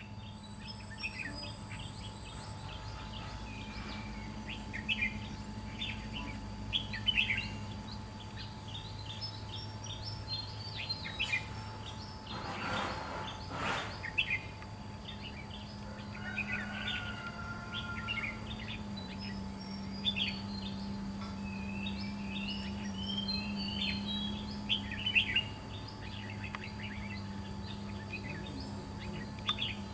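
Red-whiskered bulbuls calling: short, sharp chirps scattered throughout, with a longer warbled song phrase about twenty seconds in, over a faint steady hum.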